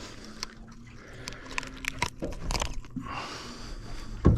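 Irregular light clicks and knocks, like gear being handled on a small fishing boat, with a faint low hum in the first half.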